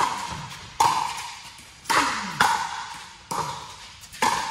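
Pickleball rally: about six sharp, echoing pops of paddles striking the hollow plastic ball, coming irregularly every half second to a second.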